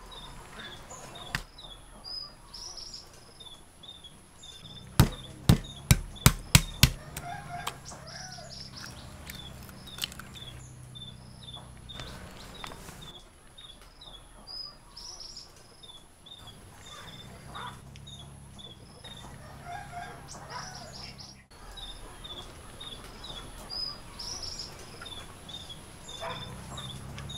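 Birds chirping over and over and chickens clucking now and then, with a quick run of about seven sharp knocks about five seconds in.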